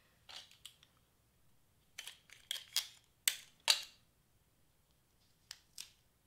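Clear tape and cardstock being handled and pressed down by hand: a string of short crinkles and clicks, loudest a little past the middle.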